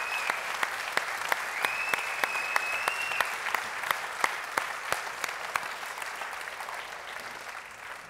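Large audience applauding, dense clapping that thins out and fades toward the end. A high steady tone is held for about a second and a half around two seconds in.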